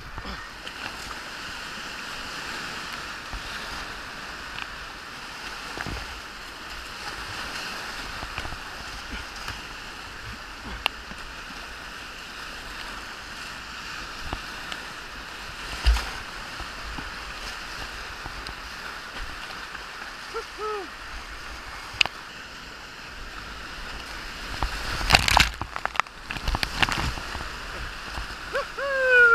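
Whitewater rapids rushing steadily around a kayak, with scattered sharp knocks and splashes from paddle strokes and waves, and a loud burst of splashing about 25 seconds in. Short falling calls from a paddler's voice come about 20 seconds in and at the very end.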